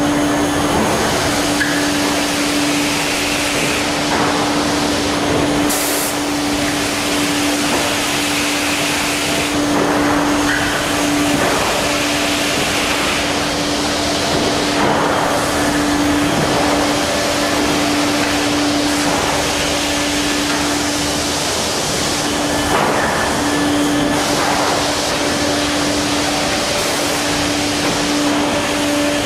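Sawmill log-processing machinery running: a steady mechanical hum with one constant tone under a loud rushing noise that swells and eases every few seconds.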